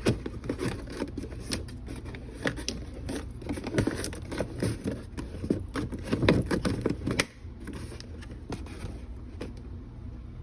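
Busy kitchen handling noise: quick clicks, taps and crinkling of food preparation, several a second, stopping suddenly about seven seconds in, over a low steady hum.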